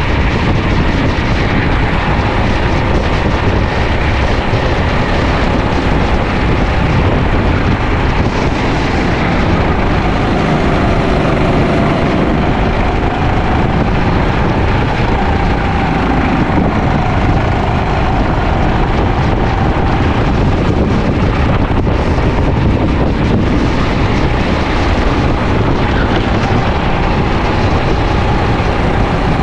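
Sodi LR5 rental kart engine running at racing speed, its pitch wavering up and down with the throttle, with wind buffeting the onboard microphone.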